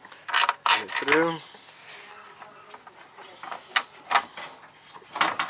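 Metal scraping and clicking as a long bolt is worked by hand through a VW Mk2 front control arm bushing and subframe bracket: two sharp scrapes early, a short squeak about a second in, then scattered clicks near the end.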